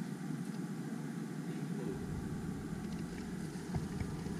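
Steady low rumbling background noise, with a deeper rumble joining about two seconds in and a few faint ticks near the end.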